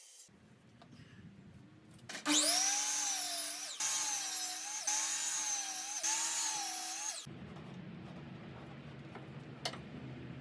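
Power saw cutting 3/4-inch plywood: a loud whine that dips and wavers in pitch under load, starting about two seconds in and stopping about seven seconds in, broken by a few abrupt jumps. Afterwards a low steady hum and a single click near the end.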